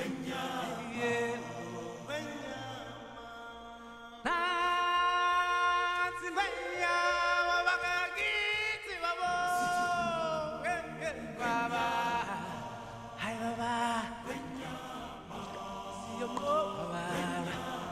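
Intro music: a song with a sung, chant-like vocal line, louder from about four seconds in.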